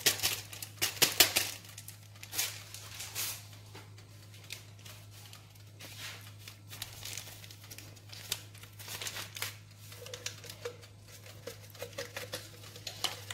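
Paper sachets of baking powder crinkling and being torn open, then emptied into a plastic blender jug: a string of rustles and small clicks, busiest in the first few seconds and sparser after.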